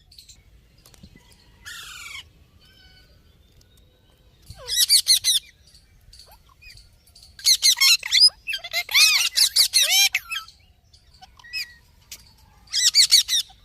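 A pet parrot squawking and screeching in four bouts of shrill calls, the longest about eight to ten seconds in.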